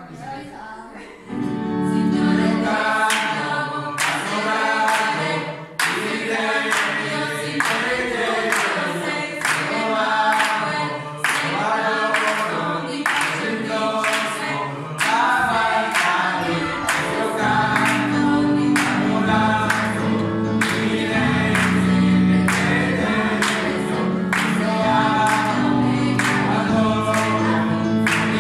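Small mixed choir of men and women singing together, with hands clapping in time on the beat from about a second and a half in.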